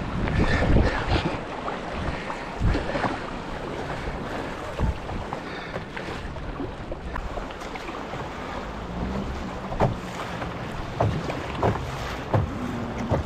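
Fast river water rushing and splashing around a canoe running choppy current, with wind buffeting the microphone. Scattered thumps, the loudest about a second in.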